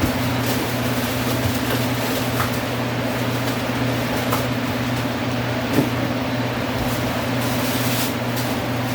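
A steady low electrical hum under a constant even hiss, with a few faint clicks.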